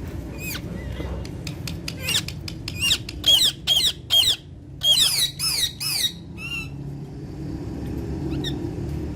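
Alexandrine parrot giving a rapid run of loud, harsh screeching calls, each dropping in pitch, bunched between about two and six seconds in.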